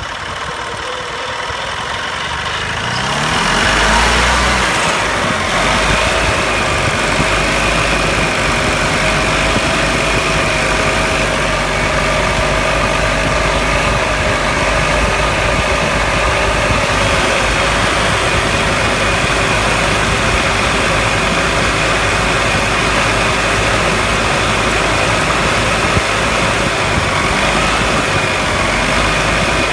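A 1993 EZ-GO gas golf cart engine is spun up by the gas pedal and rises in speed over the first few seconds, then runs steadily. The owner says its speed dances back and forth from a carburetor, air or fuel problem, and that this seems to stop when the choke is pulled out.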